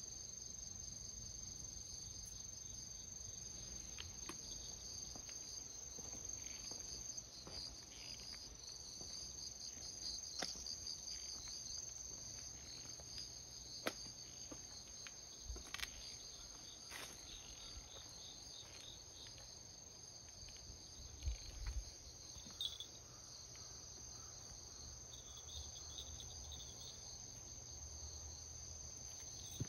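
Insects trilling steadily: a continuous high chirring with a pulsing trill just below it. A few soft knocks and thumps come through, the loudest just past two-thirds of the way in.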